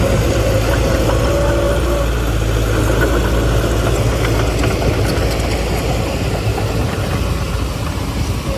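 Heavy earthmoving machine's diesel engine running steadily, easing slightly near the end.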